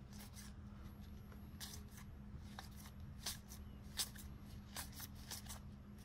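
A stack of trading cards being thumbed through by hand: quiet, irregular slides and flicks of card against card about once a second, over a faint steady hum.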